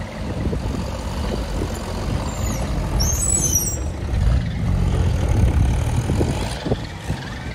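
Vintage farm tractor engine running slowly as the tractor passes close by, a low rumble that grows louder toward the middle. A brief high squeal comes about three seconds in.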